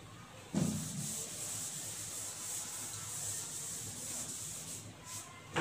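Chalkboard eraser wiping across a chalkboard: a steady rubbing that starts about half a second in and stops shortly before the end.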